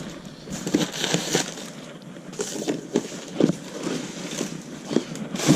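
A cardboard product box being handled: irregular rustling with scattered light knocks and taps.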